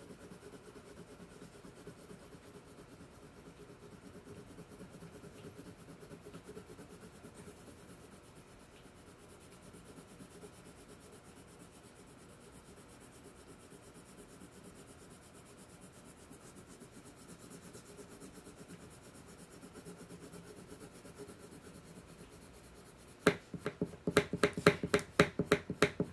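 Wax crayon colouring on paper, a soft, steady rapid scratching of back-and-forth strokes. About 23 seconds in, a quick run of much louder, sharp scratchy strokes, several a second, lasts until the end.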